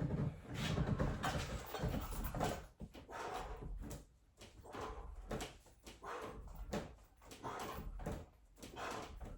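A man breathing hard and straining through a set of weighted pull-ups, with short sounds repeating about once a second.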